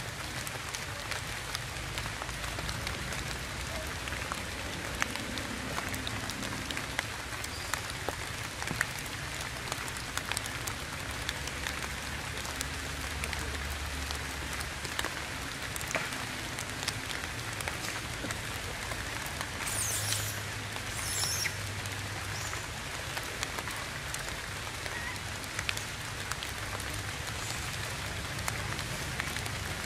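Steady rain falling through a tree canopy: an even hiss dotted with many small drop ticks. A couple of brief high-pitched sounds come about two-thirds of the way through.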